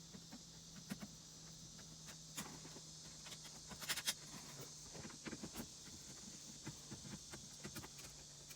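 Faint, scattered small clicks and ticks of a screwdriver taking out the last screws holding the radio in the dashboard, with a short cluster of clicks about four seconds in, over a steady low hum.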